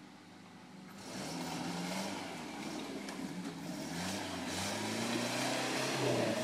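Four-wheel-drive SUV's engine revving up and down as it drives off a muddy bank into a shallow creek, coming in loudly about a second in, with the tyres churning through mud and water.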